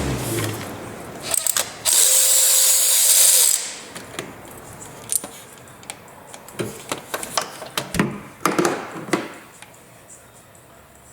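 Tools and small metal parts clicking and clattering under a mechanic's hands. About two seconds in comes a loud hiss lasting about a second and a half, with sharp clicks just before it.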